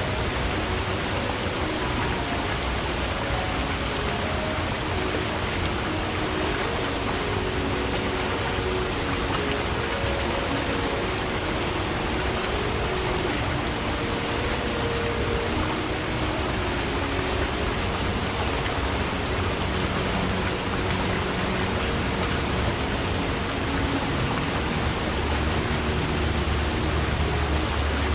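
Stream water flowing in a steady, continuous rush, with brief low gurgling tones bubbling through it.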